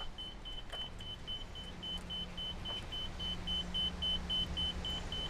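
Laser level receiver on a grade rod beeping rapidly, a high single-pitched beep about four times a second, as the rod is set on the top of the insulated concrete form walls to check that they are level.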